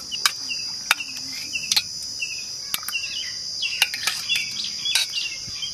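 Stainless-steel ladle clinking against a steel pot and small steel bowls as curry is served out, sharp clinks every second or so. Behind it, a steady high buzz of insects and short bird chirps repeating.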